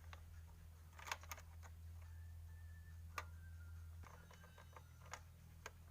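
A few sharp small clicks and taps of a screwdriver working the screws of a plastic toy's cover, the loudest about three seconds in, over a low steady hum.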